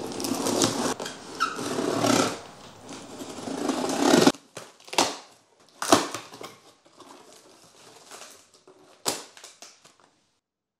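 A blade slitting packing tape and scraping along a cardboard shipping box, a dense tearing sound that stops abruptly about four seconds in. Then the cardboard flaps are pulled open, with three sharp knocks and quieter rustling of the box and packaging.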